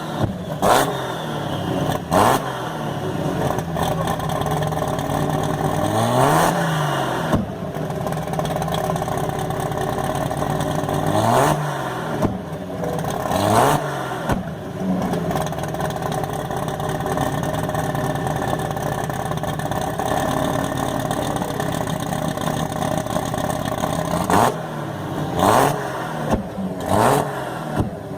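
Chevrolet Opala straight-six engine revving again and again, its pitch rising and falling with each blip, broken by a few sharp cracks.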